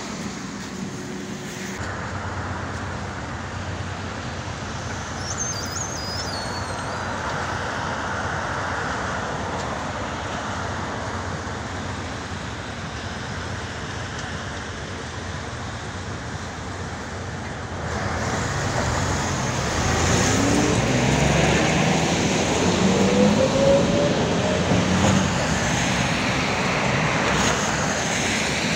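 Steady street traffic noise that grows louder past the middle. In the second half an electric whine rises in pitch for several seconds, as from a tram's traction motors pulling away.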